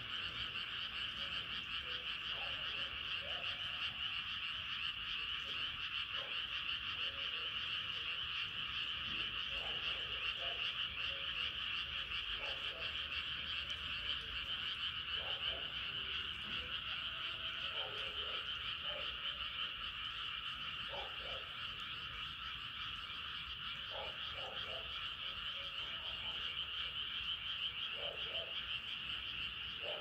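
A dense chorus of frogs calling at night, a steady unbroken trilling mass, with separate lower croaks from single frogs standing out every few seconds.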